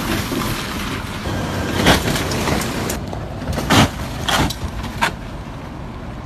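Street traffic running steadily, with several sudden bangs as car and van wheels drop into a deep pothole and strike its edge, the kind of hit that knocks a car's wheel alignment out.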